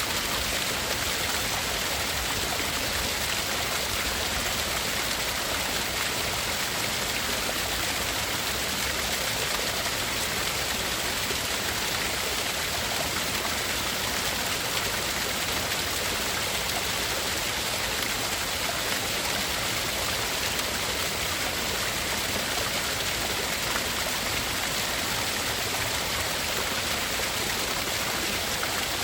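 Steady rushing hiss of tinnitus-masking noise, even and unbroken, with two narrow gaps cut out high in pitch.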